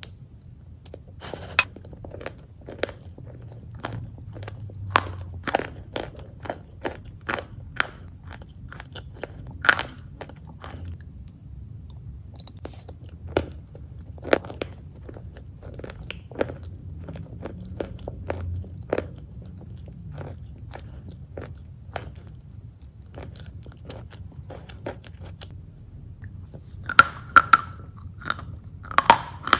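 A person biting and chewing crisp, crunchy food: a string of sharp, irregular crunches, coming thicker and louder near the end.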